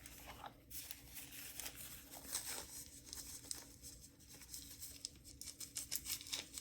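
Faint crinkling and tearing of wrapping, a run of quick small crackles, as the next padlock is unwrapped from its packaging.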